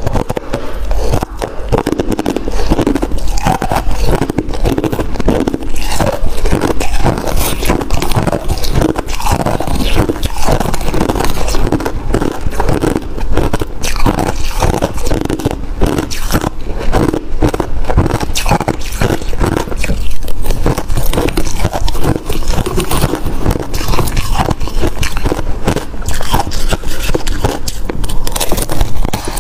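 Close-miked crunching of freezer frost being bitten and chewed, a dense run of crisp crunches, with a metal spoon scraping through the frost in a bowl.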